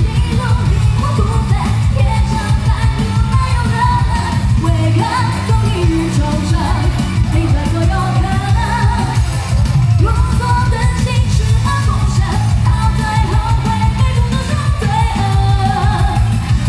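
Woman singing a Chinese-language pop song live into a microphone over a loud pop accompaniment with a steady pulsing low beat, heard through the hall's PA.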